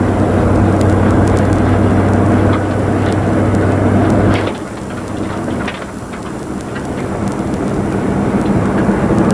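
Truck driving: steady engine and road noise, the engine note falling away about four and a half seconds in, then the noise building back up gradually.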